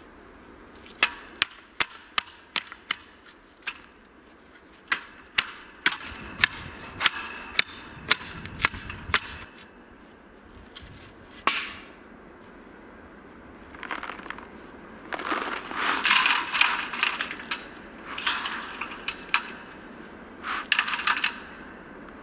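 A wooden board rammed down into the soil at the foot of a metal fence post to tamp it: a run of sharp knocks, one or two a second, for the first several seconds. Later comes a stretch of crunching and scuffing as the earth around the post is pressed down underfoot.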